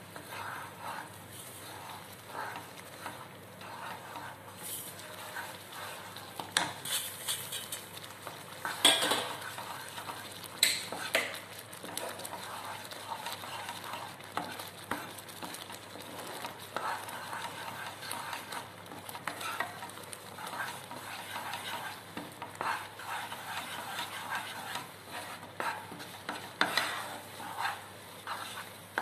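Wooden spatula stirring roasted semolina (rava) into boiling water in a nonstick kadai. It scrapes against the pan in irregular strokes, a few of them louder, over a wet sizzling as the mixture thickens.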